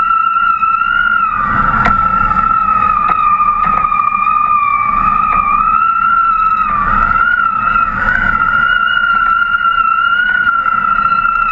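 A steady whistling tone, wavering slightly in pitch, over wind rushing on the microphone of a camera carried aloft on a kite: wind whistling over the camera and the kite's lines. The rushing swells briefly a couple of seconds in and again a little past halfway.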